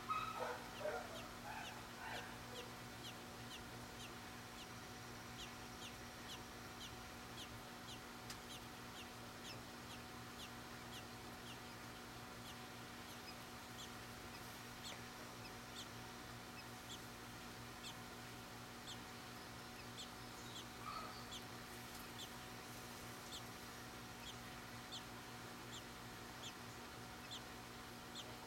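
Faint bird chirps: short, high, falling notes repeated about twice a second, with a louder, irregular jumble of lower calls in the first two seconds and a steady electrical hum underneath.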